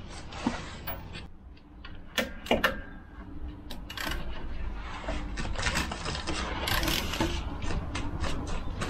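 Metal hand tools clicking and clinking at a rear brake caliper while a tool is worked onto the caliper bolts. A few sharp clinks in the first three seconds, then denser, irregular clicking and scraping from about four seconds in.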